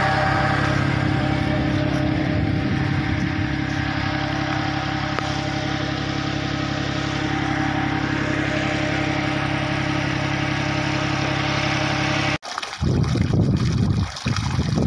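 Mitsubishi mini tractor's engine running steadily under load, driving a generator. About three-quarters of the way through it cuts off abruptly, and the rushing of water pouring from a pipe outlet follows, with wind on the microphone.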